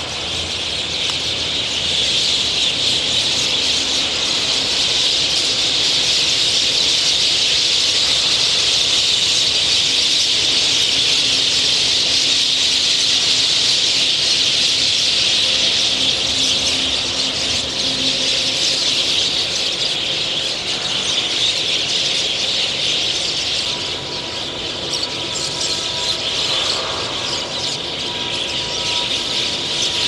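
A huge flock of birds calling all at once, a dense, steady, high-pitched chorus.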